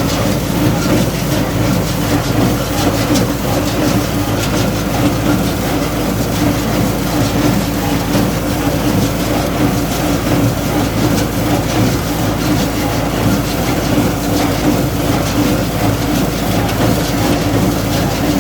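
Landini Blizzard tractor engine running steadily under load while it drives a Welger AP 52 square baler baling straw. The baler's mechanism clatters quickly and continuously over the engine.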